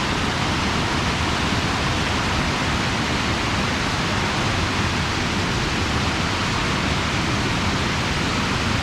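Waterfall: the steady rush of falling water, a dense even noise that does not change.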